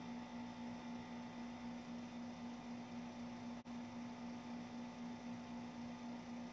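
Steady electrical hum with one strong low tone over a hiss, from an air-conditioner's outdoor unit running under load, with a very brief dropout about three and a half seconds in.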